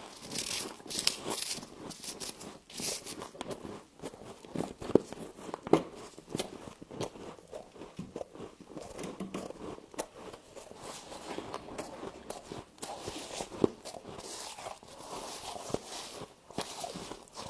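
Close-up crunching and chewing of frost: a dense run of irregular, brittle crackles and crunches, with a few sharper crunches standing out.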